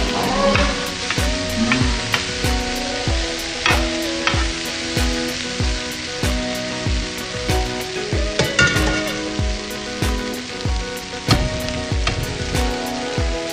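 Tofu sisig sizzling on a hot cast-iron sizzling plate while a spoon stirs and scrapes through it. Background music with a steady beat plays underneath.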